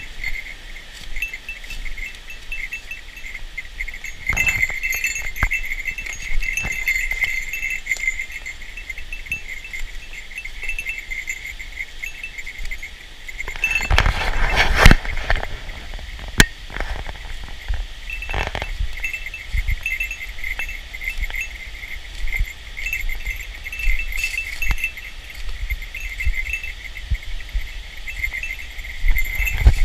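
A steady, high-pitched chorus of small animals calling in rapid short pulses. Scattered knocks and clicks run through it, and a louder rustling burst comes about halfway through.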